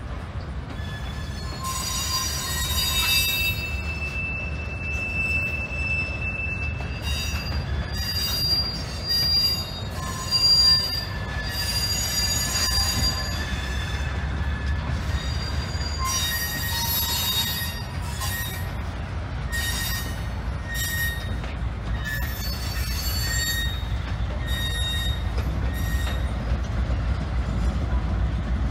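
Covered hopper cars rolling slowly over rusty track, their wheels squealing in repeated high-pitched tones that come and go, over the low rumble of a GE B36-7 diesel locomotive shoving them. The rumble grows louder near the end as the locomotive draws level.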